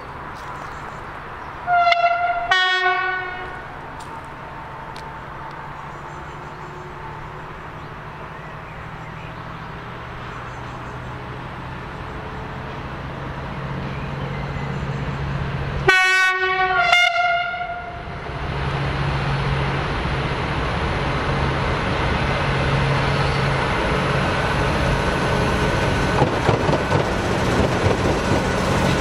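Vossloh G 1206 diesel locomotive sounding its two-tone horn, a high note then a low note, about two seconds in and again about sixteen seconds in. Its engine hum grows as it approaches with a freight train, and from about eighteen seconds the rumble of wheels and wagons rises.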